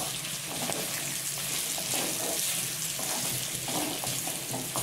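Pork and vegetables sizzling in a metal kadai while a wooden spatula stirs them, a steady hiss with irregular scraping and tossing strokes. They are dry-frying without added water.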